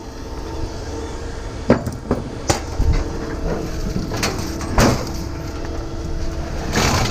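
Pieces of scrap metal being dropped or tossed onto a pile, a handful of separate clanks and a short rattle near the end, over a steady machinery hum.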